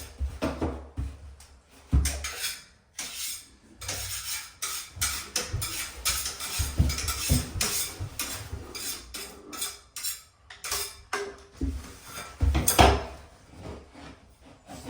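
Irregular knocks, clinks and short scrapes of hand tools and timber being handled during skirting-board work.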